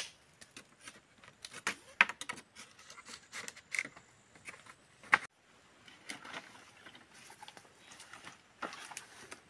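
Bamboo poles knocking and clacking against each other as they are picked up and stacked into a woven basket: irregular sharp knocks, the loudest about two and five seconds in, then quieter knocks.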